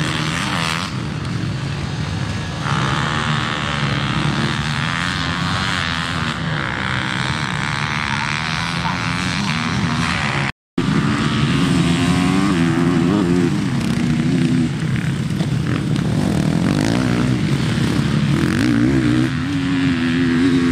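Motocross bikes racing on the track, their engines revving up and falling back as the riders open and close the throttle. The sound drops out for a moment about halfway through and comes back louder.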